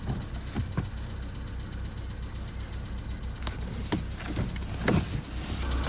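Volkswagen Polo Sedan's 1.6-litre CFNA four-cylinder petrol engine running about three minutes after a cold start, a steady low hum with a few scattered sharp ticks. The engine is still knocking while cold, which the owner puts down to the hydraulic lifters.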